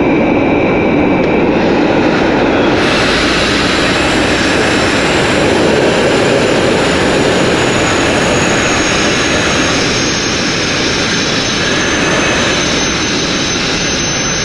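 Sandblasting nozzle blasting continuously: a loud, steady rush of compressed air and grit stripping old two-pack paint and filler from a boat hull. The hiss turns brighter and harsher about three seconds in.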